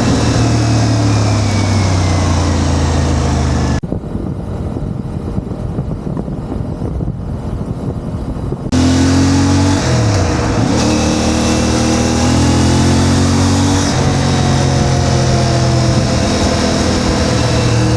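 CF Moto 450 MT's parallel-twin engine running under way, with the pitch changing in steps a few times as the bike cruises and shifts. The sound goes muffled and somewhat quieter for about five seconds early on, then comes back clear.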